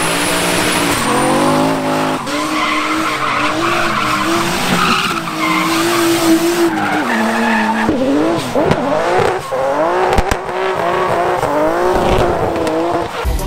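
Drift car's engine revving hard while its rear tyres spin and squeal through a smoky slide; the revs fall away and climb again about eight seconds in.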